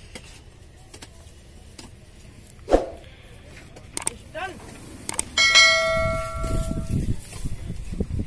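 Metal knocks and clicks from hands working on an old farm machine, with a sharp knock a few seconds in; about five seconds in a piece of metal rings out clearly like a struck bell for about a second and a half, over a low rumble.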